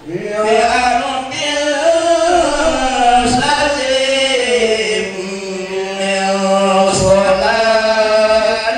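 Voice chanting Arabic devotional verses in the Marhaban style, a slow, ornamented melody of long held notes that bend up and down, with a steady lower note sustained beneath it in the second half.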